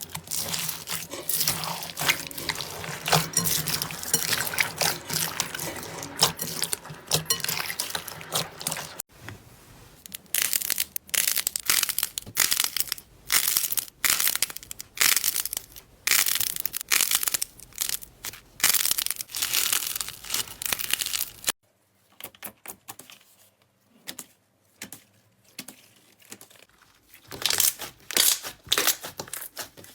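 Slime being squeezed, poked and stretched by hand, with sticky crackling and popping. A dense continuous crackle for about nine seconds, then a run of separate quick presses, then a quieter stretch with a burst of crackles near the end.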